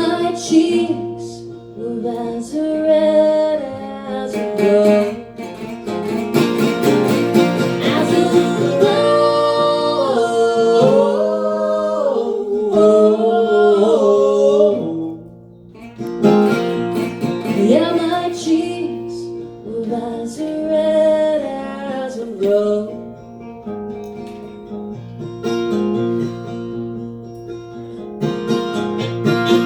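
Acoustic string band playing an old-time ballad: acoustic guitar picking with a bending melody line played over it, dropping away briefly about halfway through before the guitar carries on.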